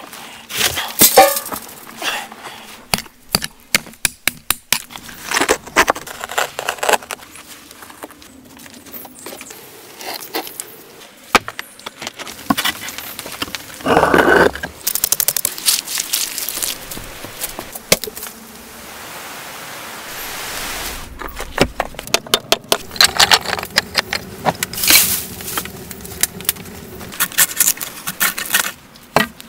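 A string of close-up handwork sounds: soil and stones scraped and knocked, with many short sharp clicks and knocks, then rotten wood crackling and splintering as it is pulled apart by hand near the end.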